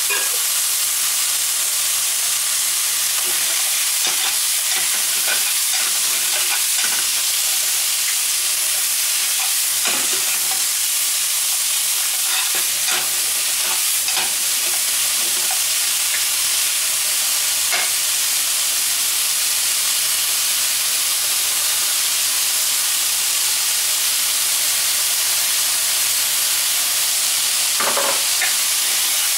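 Bitter melon and sliced pork sizzling steadily in a frying pan, with a wooden spatula scraping and knocking against the pan now and then as the food is stir-fried.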